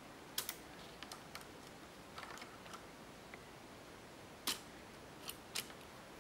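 K'NEX plastic pieces clicking and tapping as fingers handle the reclining bus-seat mechanism: scattered light clicks, the sharpest about half a second in and a few more in the last two seconds.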